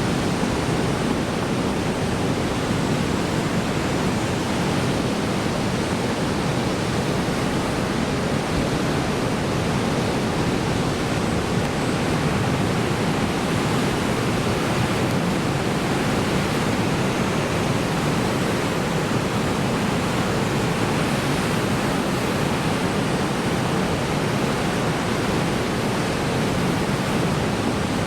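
Heavy surf from a typhoon's swell breaking on the shore: a steady, dense wash of wave noise with no single crash standing out.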